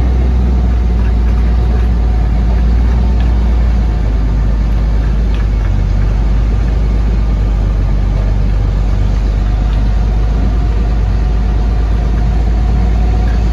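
Steady low drone of diesel engines: a truck's engine heard from inside its cab, mixed with a Claas Jaguar forage harvester working just ahead as it chops corn and blows the silage into a truck.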